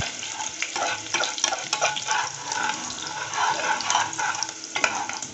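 Chopped garlic frying in hot oil with cumin seeds, sizzling and crackling steadily while a spatula stirs it in the pan.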